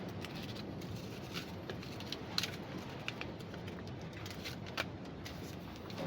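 Steady wind and surf noise on an open beach, with scattered light clicks and taps. The sharpest come about two and a half seconds in and again near five seconds.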